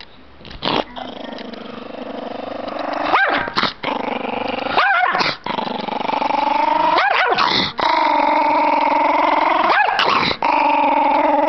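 Chihuahua growling angrily without a break, with about four short sharp snapping barks mixed in. The dog has been provoked.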